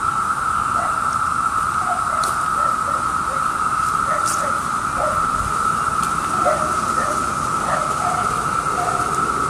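Massed chorus of Brood II periodical cicadas (Magicicada): a steady drone held at one pitch without a break, with faint short chirps beneath it.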